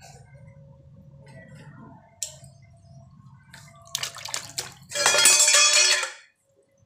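Water in a plastic tub being stirred and sloshed by a small child's hand, soft at first with a few light slaps. About five seconds in comes a loud splash lasting about a second.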